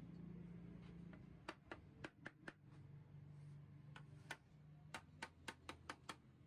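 Faint, sharp clicks or taps, about a dozen in two irregular clusters, over a low steady hum.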